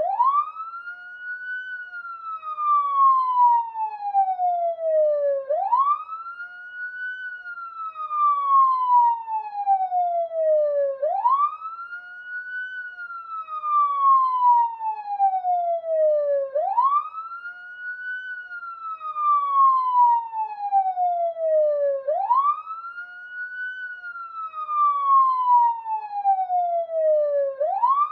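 Police siren wailing: each cycle sweeps quickly up in pitch, then slides slowly back down over about four seconds, repeating every five and a half seconds.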